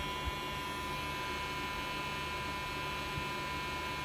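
Small battery-powered handheld bladeless fan running, its motor giving a steady electric whine with a high hum in it. Two light knocks come from handling, about a third of a second in and again after three seconds.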